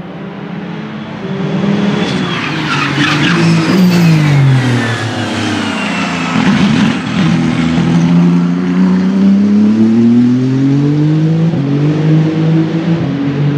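Ferrari race car engine on track: its pitch falls in steps as it slows, then climbs in one long rising sweep as it accelerates away.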